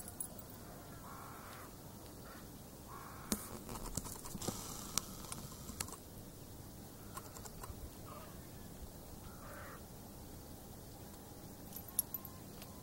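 Faint crows cawing now and then, with a few sharp clicks, the loudest about three and five seconds in.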